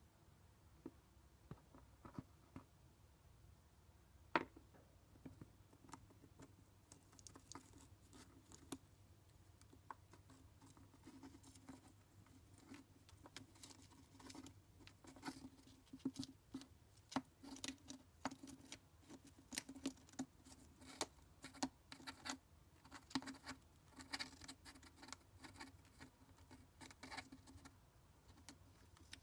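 Chinchilla gnawing and crunching a nut: quick, faint crunching clicks, sparse at first and coming thick and fast from about seven seconds in, with one sharper click about four seconds in.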